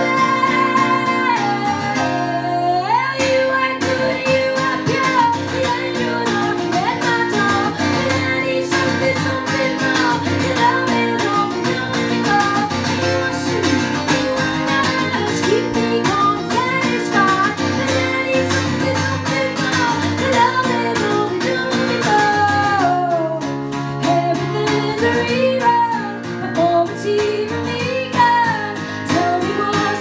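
A woman singing a song and accompanying herself on a strummed acoustic guitar, performed live.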